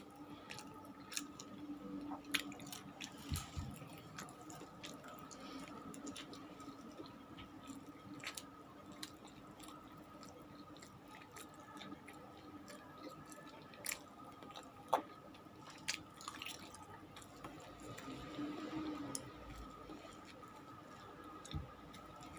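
Someone chewing food close to the microphone, with scattered soft mouth clicks and smacks over a faint steady hum.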